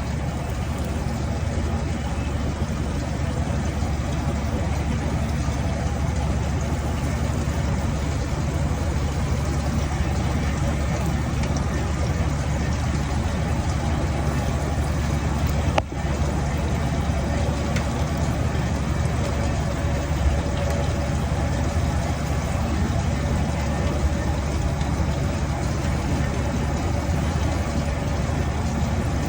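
Steady, low droning hum of running machinery, with a single sharp click about halfway through.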